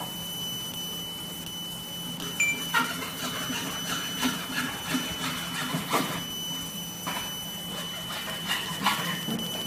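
Laser marking machine running while it engraves: a steady high-pitched whine over a low hum, with irregular sharp clicks from about three seconds in.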